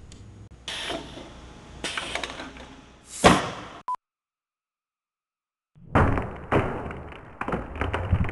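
Knocks and thuds from a golf-ball cannon test on a cuckoo clock. The loudest is a sharp bang about three seconds in, which swells briefly before it. A short beep follows, then a dead cut to silence. From about six seconds there is a dense run of rapid clattering knocks, duller in tone.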